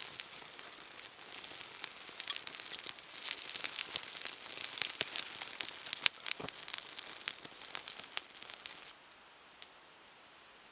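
Birch bark kindling fire crackling and hissing, with frequent sharp pops and snaps; the sound drops away suddenly about nine seconds in, leaving only a faint background.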